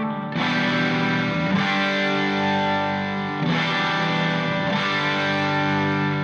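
Background music: sustained distorted electric guitar chords with effects, changing chord every second or two.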